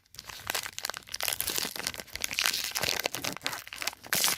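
Plastic wrapper of a Score football card pack being handled and torn open: a dense run of crinkling and crackling.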